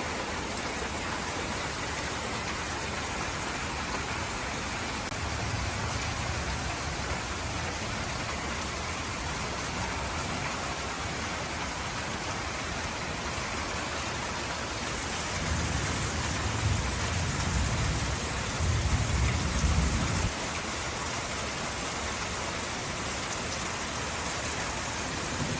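Steady rain falling, an even hiss. A low rumble swells faintly about five seconds in and more strongly for several seconds past the middle.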